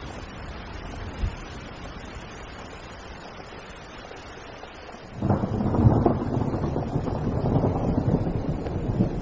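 Steady rain hiss, then about five seconds in a loud, low rumble of thunder breaks in and keeps rolling.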